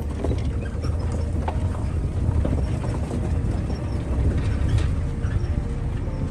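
A vehicle driving, with a steady low rumble and scattered knocks and rattles.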